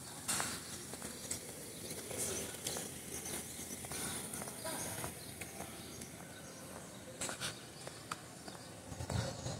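City street ambience: a steady background hiss with scattered light taps and clicks.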